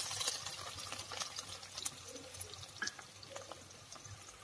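Shallots sizzling in hot oil with tempering seeds in a frying pan, a steady hiss with scattered small crackles that dies down gradually.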